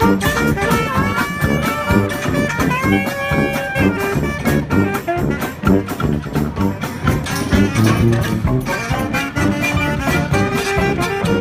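Street marching band playing: brass and saxophones carrying a melody over a steady drum beat.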